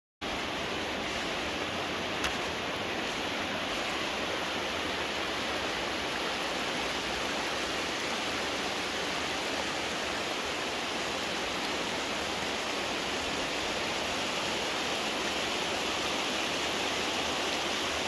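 Small waterfall, water spilling in many thin streams over limestone rock: a steady rush of falling and splashing water. A single brief click about two seconds in.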